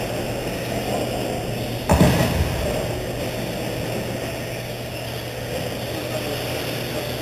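Steady background noise of a large indoor hall with a low hum, and one loud knock about two seconds in.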